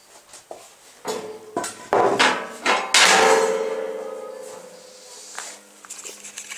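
Steel clanks and knocks as a homemade loader's bucket settles onto its mounting plate and the spring-loaded bucket latch snaps shut. The loudest clank comes about three seconds in and the bucket's steel rings on after it, slowly dying away.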